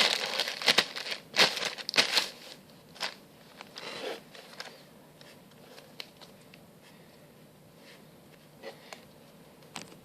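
Squishy toy packaging crinkling and rustling in the hands as it is opened, busy in the first couple of seconds, then only scattered small rustles.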